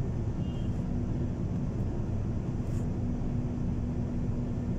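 MAN TGS 21.400's six-cylinder diesel engine idling, a steady low drone with a constant hum, heard from inside the cab.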